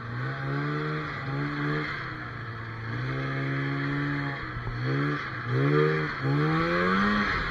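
Polaris Indy snowmobile's two-stroke engine revving up and easing off again and again under the throttle while the sled is ridden, with a longer climb in revs near the end, over a steady rushing hiss.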